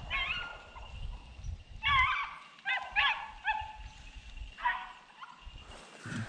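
Beagles baying on a rabbit chase: about five short, wavering bays spread over a few seconds.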